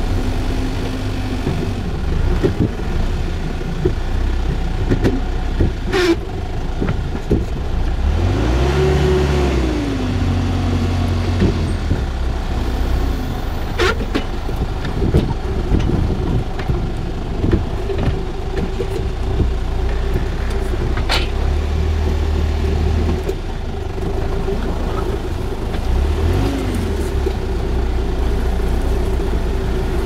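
Small vineyard tractor's engine running steadily as it drives, its note rising and falling once about nine seconds in, with scattered knocks and rattles.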